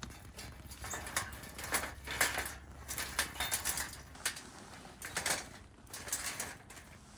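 Kindling wood crackling and snapping in irregular clusters of sharp crackles, coming in quick runs with short gaps and thinning out near the end.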